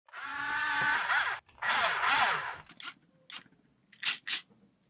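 High-current DC motor mounted on an RC excavator's bucket, spinning a thin metal strip on its shaft in two bursts of about a second each, its pitch sliding up and down. A few light clicks follow.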